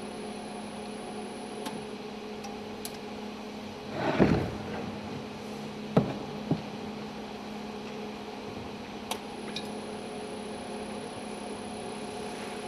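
Small electric bottle-filling machine humming steadily while it runs. About four seconds in there is a short rustling clatter, and around six seconds two sharp knocks as glass bottles are handled on the bench.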